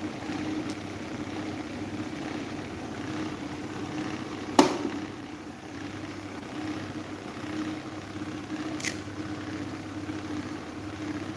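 Electric table fan running with a steady motor hum and the rush of its blades. There is a sharp click about four and a half seconds in and a fainter click near nine seconds.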